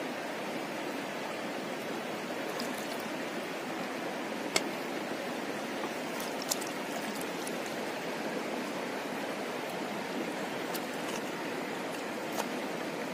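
Shallow river water running steadily over stones. A few sharp taps sound through it as a knife and pestle knock against a wooden mortar.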